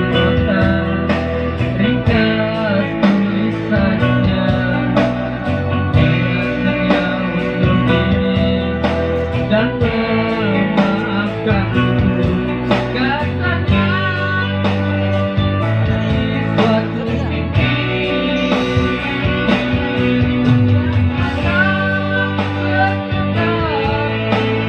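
Music from a Korg Pa50SD arranger keyboard played through large speaker cabinets, with a man singing into a microphone over it.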